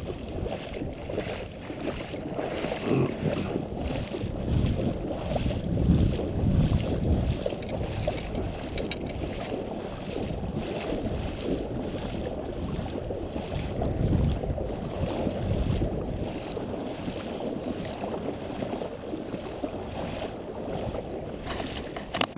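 Wind buffeting a GoPro camera's microphone as a rough, steady rumble, swelling in stronger gusts a few seconds in and again past the middle.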